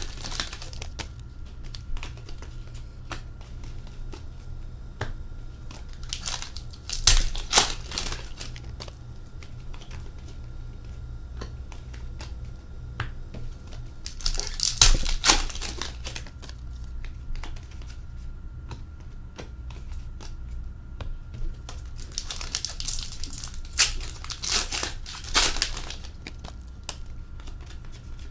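Hockey card pack wrappers being torn open and crinkled, in short crackly bursts about 7 and 15 seconds in and again around 22 to 26 seconds, over a low steady hum.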